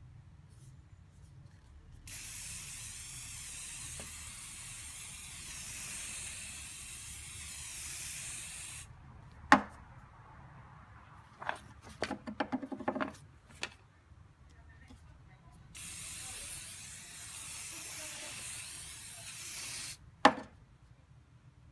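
Aerosol can of fabric protector spraying in two long hisses, the first about seven seconds and the second about four. Between and after them come a few sharp clicks and a short clatter.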